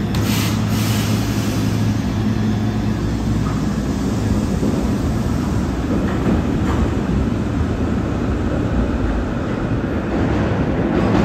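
SEPTA Kawasaki light-rail trolley pulling out of an underground station: a brief hiss right at the start, a steady hum that fades after a few seconds, then the rumble of steel wheels on rail building as the car moves off down the tunnel.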